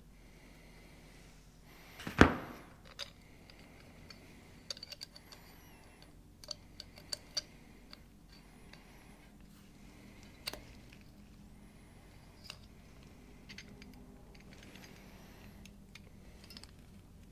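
Hand tools and small metal pump parts being handled on a workbench while a diesel injection pump is taken apart: one loud metallic clunk about two seconds in, then scattered light clicks and clinks.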